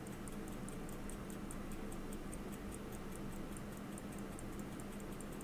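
Elgin pocket watch movement ticking steadily, about five ticks a second, its balance running on freshly oiled pivots after a barrel repair. The ticking is faint and weak: "not ticking greatly, but it is ticking."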